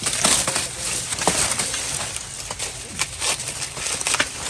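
Dry corn husks and leaves rustling and tearing as an ear of corn is husked by hand on the stalk: irregular crackling and rustling with a few sharper cracks.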